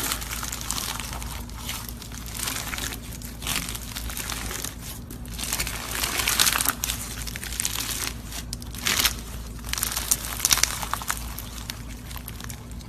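Crunchy slime being squeezed and pressed by hand, giving irregular crackling, crinkling pops that come in bursts, the thickest about halfway through and again a few seconds before the end.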